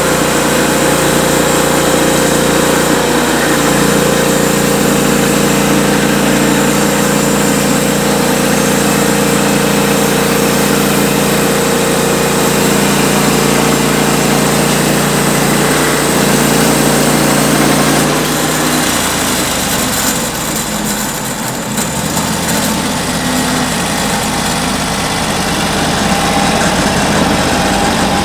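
Sawmill engine running steadily as the saw cuts a cypress log, with a hiss of the blade through the wood; about two-thirds of the way through the engine note changes and settles into a different steady run.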